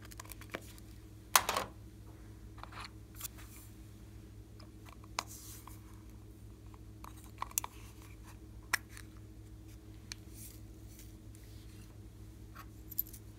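Scattered clicks and taps of a small hard plastic case being handled, the loudest a sharp click about a second and a half in, over a low steady hum.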